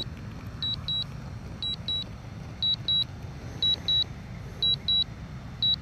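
Drone remote controller beeping a quick double beep about once a second, the alert that the drone is flying back in return-to-home mode, over a low steady rumble.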